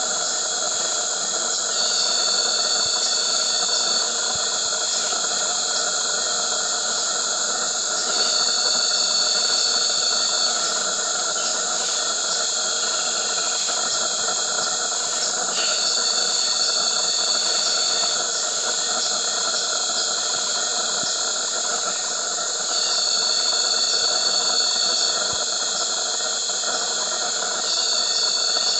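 Dense insect chorus: a steady high-pitched drone with several other steady tones beneath it. A louder high whine of about two seconds comes in five times, every six to seven seconds.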